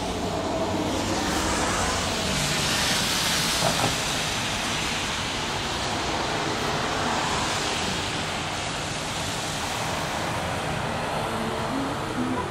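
Traffic noise on a wet, slushy street: the steady hiss of tyres on wet road, swelling louder about two to four seconds in as a vehicle passes.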